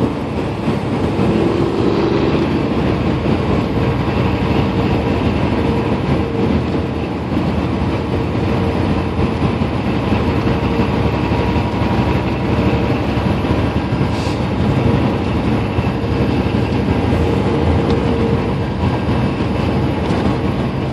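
Cab noise of a semi-truck driving at highway speed: a steady drone of the engine with tyre and road rumble.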